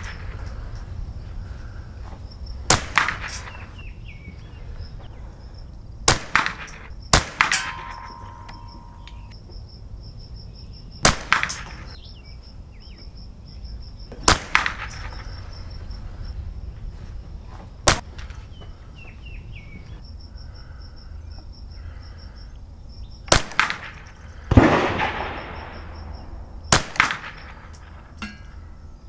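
Marlin Model 60 semi-automatic .22 Long Rifle fired in slow single shots: about nine sharp cracks spaced a few seconds apart. One report about two-thirds through is louder, with a longer echo.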